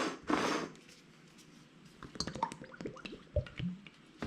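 Kitchen food-prep handling noises: two brief rushing noises at the start, then scattered light clicks and taps.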